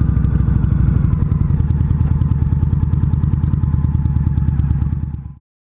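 Indian Scout Sixty's V-twin motorcycle engine running steadily with an even pulsing exhaust note; the sound cuts off suddenly near the end.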